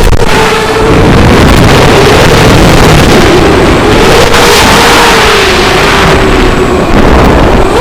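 Racing quadcopter's brushless motors and propellers whining, the pitch rising and falling with throttle through the turns, with heavy wind noise on the microphone.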